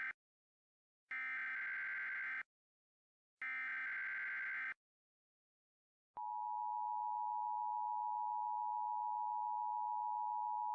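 Emergency Alert System signal: the tail of one SAME header data burst, then two more header bursts of about a second each with short gaps between them. About six seconds in, the steady two-tone EAS attention signal begins, announcing that an alert message follows.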